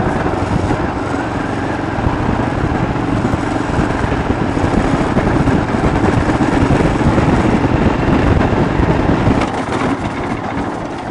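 Royal Enfield Himalayan's 411 cc air-cooled single-cylinder four-stroke engine running steadily as the motorcycle is ridden over a rough dirt track, easing slightly near the end.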